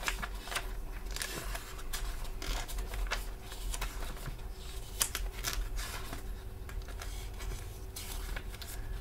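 Paper rustling and shuffling as sheets are searched through, a string of small crisp rustles and clicks with one sharper click about five seconds in, over a steady low electrical hum.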